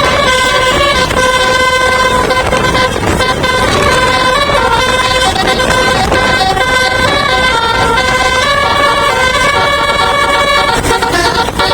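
Bus telolet musical air horn playing a tune of held notes that step up and down in pitch, over a steady low rumble.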